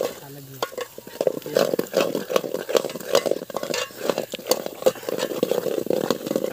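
Metal ladle stirring a thick chicken curry in a metal pot, scraping and clinking against the pot's sides in an irregular rhythm, over the sizzle of the hot gravy.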